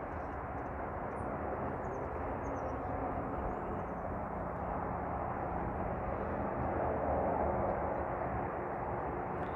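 Steady distant engine drone that swells a little about seven seconds in and then eases. A few faint high chirps come over the first few seconds.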